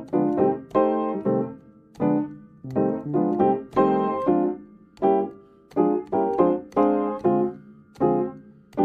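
Piano-style keyboard music: notes and chords struck in quick succession, each fading after it is struck.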